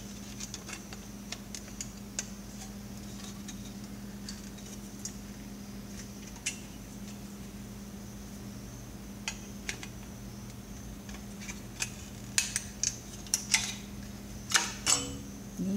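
Scattered light clicks and clinks of small parts being handled and pried at while an old CRT computer monitor is taken apart. The clicks are sparse at first and become busier and louder over the last few seconds.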